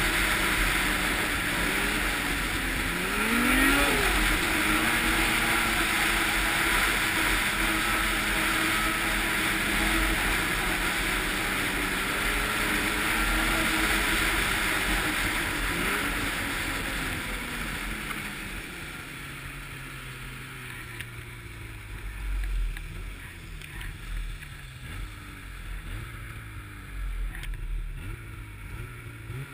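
Snowmobile engine running at speed under a loud, steady rushing hiss, its pitch rising briefly a few seconds in. About eighteen seconds in it eases off, the engine pitch falling as the sled slows to a lower, uneven running.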